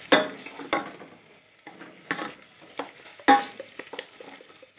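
Utensil stirring spaghetti in Alfredo sauce in a metal pot, scraping with several sharp clinks against the pot, one of them ringing briefly.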